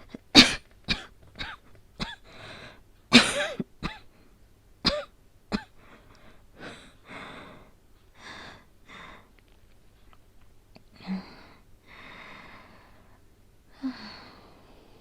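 A woman, acting an asthmatic with a cold, has a fit of about ten sharp coughs over the first six seconds. Slower, breathy, labored breaths follow.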